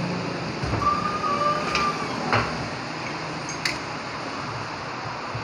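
Steel press adapters and a wheel hub being handled on a hydraulic press: a few sharp metal clinks and knocks, with a short thin squeak of metal scraping about a second in, over steady workshop background noise.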